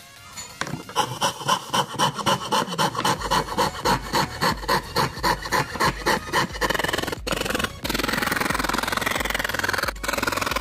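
Hand fretsaw cutting plywood: quick back-and-forth rasping strokes, about three a second, that speed up into a steady rasp about two-thirds through, broken by a few brief pauses.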